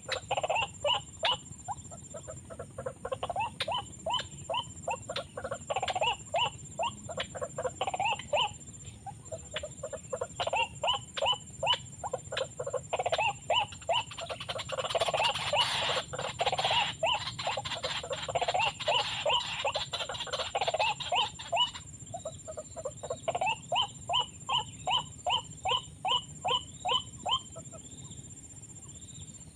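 White-breasted waterhens calling: a long run of short, rapidly repeated notes, about two to three a second. The calls become denser and louder through the middle, then settle back into an even series near the end.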